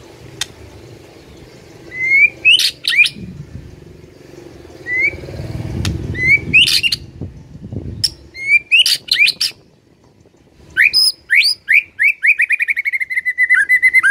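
White-rumped shama singing: short, sharp whistled phrases with quick upward-swept notes, then over the last few seconds a fast run of repeated notes, about nine a second. A low rumble lies under the song about halfway in.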